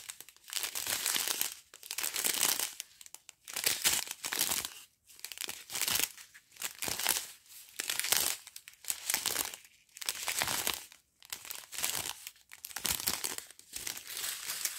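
Small clear plastic zip bags of round diamond painting drills crinkling as they are handled and turned over one after another, in bursts about a second apart.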